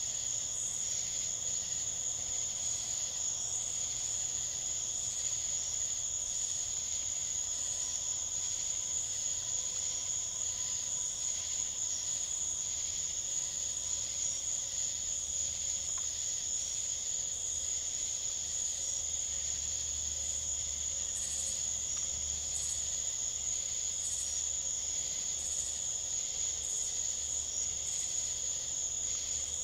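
Chorus of crickets and other night insects: a steady high trill with a second lower band under it, and a regular pulsing call from another insect about once a second.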